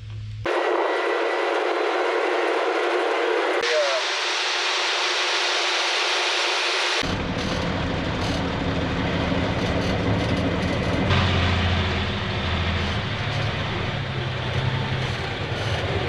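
Farm machinery running: steady engine rumble mixed with wind and road noise, broken by several abrupt changes where clips are spliced together. The low engine rumble comes in about seven seconds in.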